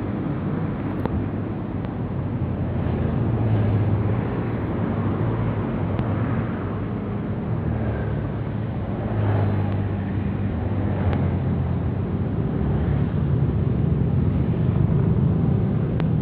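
A vehicle engine running steadily: an even low rumble with a constant hum, swelling slightly now and then.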